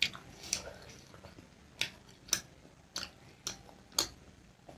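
Close-miked eating sounds: sharp, wet mouth clicks and crunches from chewing, about seven of them, often in pairs half a second apart.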